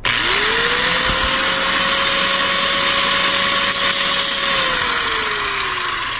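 Angle grinder with a cut-off wheel spinning up and cutting through a steel brake pedal, a loud metal-cutting hiss over a steady motor whine. The whine sinks in pitch over the last second and a half or so.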